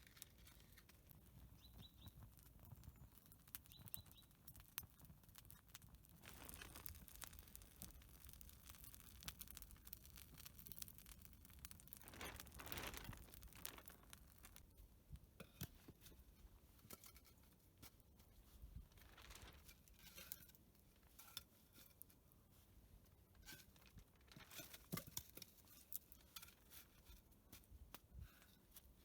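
Near silence, with faint scattered clicks and soft rustles that swell a little a few times.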